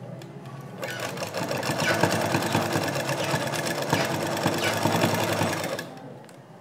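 Sewing machine running at speed, stitching lace onto fabric: a fast, even run of stitches that starts about a second in and stops shortly before the end.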